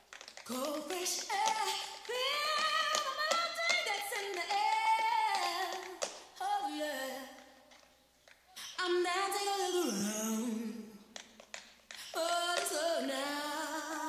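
A woman singing unaccompanied, in long held phrases with short pauses between them. A few sharp taps of tap shoes on the stage floor fall among the phrases.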